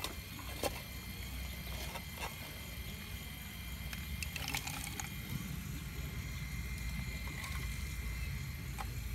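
Radio-controlled scale Caterpillar 349 excavator running with a steady motor whine while it digs, with pieces of shale clicking and clattering against the bucket a few times.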